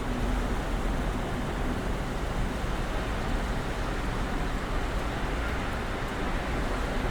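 Snowstorm ambience outside: a steady, even rushing of wind and blowing snow with a low rumble underneath.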